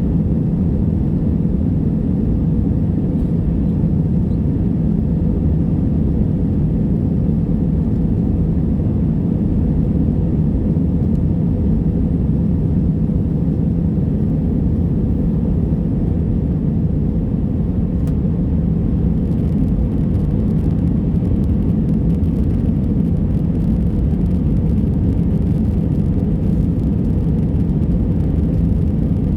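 Steady low rumble of engine and airflow noise inside the cabin of an Airbus A320, holding even throughout with no rise or fall.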